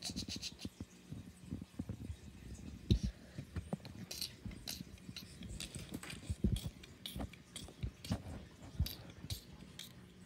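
Irregular wet crunching and chewing with sharp clicks, as live crabs are eaten.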